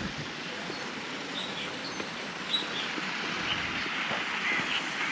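Small birds chirping, many short high calls scattered over a steady outdoor hiss.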